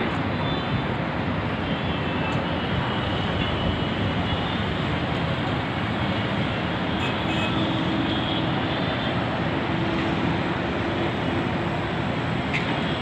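Steady wash of road traffic noise from a busy multi-lane road: many cars and other vehicles passing together, with no single vehicle standing out.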